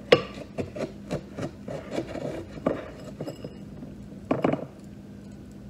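A spoon scraping and scooping crushed dry ice in a bowl: a run of short scratchy scrapes and clicks, with a louder cluster about four seconds in.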